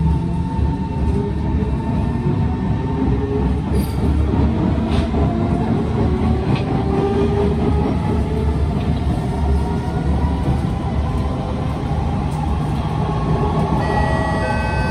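Kawasaki C151 MRT train pulling away and gathering speed, with the traction-motor whine climbing in pitch over a loud, steady rumble of wheels on rail. Its wheels thump as they roll, which the uploader takes for severe wheel flats on this car.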